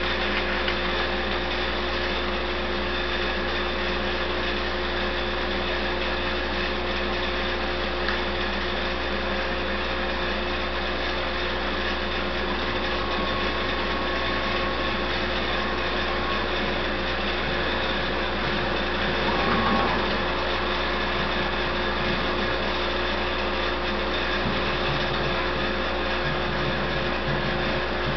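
CNC router table's spindle and dust-collection vacuum running steadily: a constant whine of a few steady tones over an even rushing noise.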